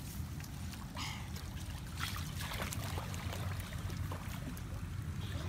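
Muddy puddle water sloshing and trickling as a child wades through it among water plants, with a few splashes.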